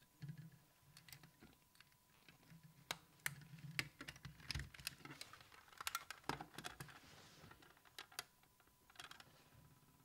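Plastic smoke alarm being handled and twisted onto its mounting base: a run of irregular light plastic clicks and taps, busiest around the middle.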